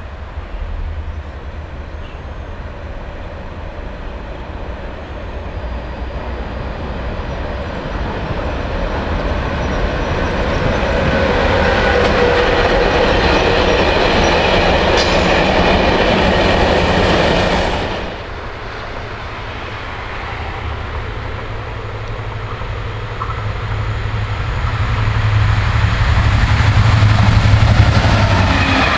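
A train running past on the line, its noise building steadily to a peak and then cutting off suddenly about two-thirds of the way through. A second train's noise then grows louder toward the end, with a strong low hum.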